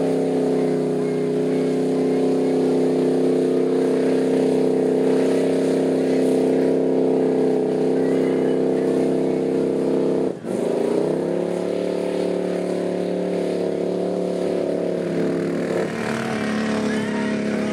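Pickup truck engine held at high revs with its wheels spinning while the truck is bogged down in deep mud. About ten seconds in the revs drop sharply, then climb back up.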